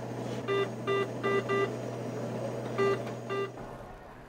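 A series of short electronic beeps all at the same pitch: four in quick succession, then a pause and two more, over a steady low hum that stops about three and a half seconds in.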